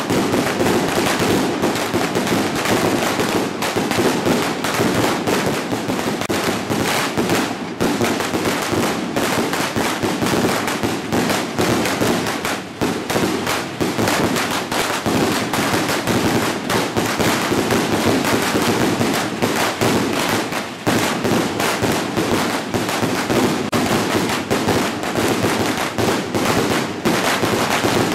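Many small boxes of firecrackers (犁炮) set along a street going off together: a loud, dense, unbroken crackle of rapid bangs, easing only briefly twice.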